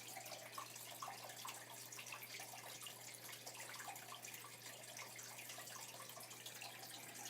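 Faint steady background noise with a low steady hum underneath.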